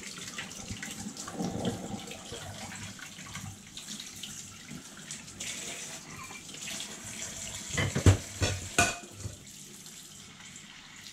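Kitchen tap running in a steady stream into a stainless steel sink as a glass is rinsed under it. A few sharp knocks of dishes being handled come close together about eight seconds in.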